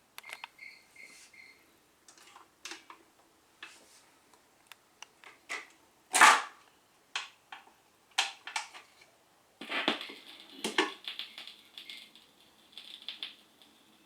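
Scattered clicks and knocks, the loudest about six seconds in, then from about ten seconds in a crackling hiss.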